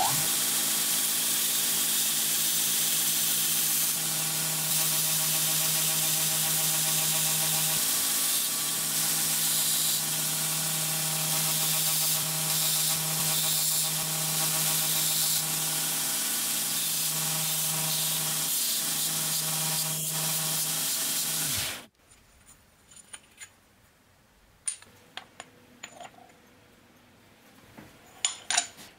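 Belt grinder running steadily, its abrasive belt hissing as a metal soft jaw is pressed against it and ground, over a steady motor hum. The sound stops abruptly about three-quarters of the way through, followed by a few light metallic clicks.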